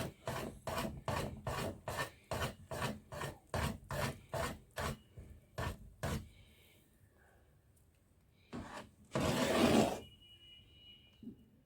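A spoon scraping round a large pot, stirring fenugreek and mughat into hot honey, with an even stroke about three times a second that stops about six seconds in. A brief louder scraping noise, under a second long, about nine seconds in.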